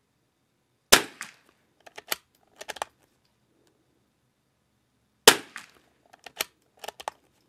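Two shots from a Christensen Arms .22 LR rifle, about four and a half seconds apart, each followed by a few lighter clicks.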